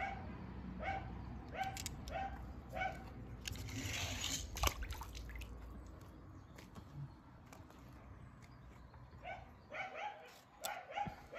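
A dog barking in runs of short, evenly spaced yaps, one run in the first three seconds and another near the end. About four seconds in comes a brief splash with a sharp knock, as a small die-cast toy car drops into a swimming pool.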